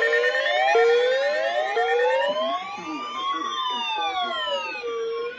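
Several electronic emergency-vehicle sirens sounding at once. They make quick rising sweeps about once a second, then a little over two seconds in switch to a slower wail that rises and falls every two to three seconds.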